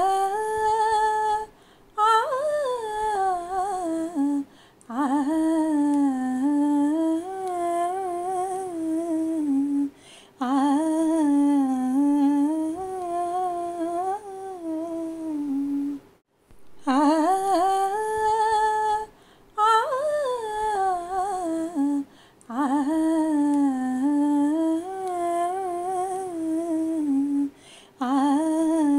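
A woman humming a slow, wandering melody in phrases a few seconds long, with short breaks between them.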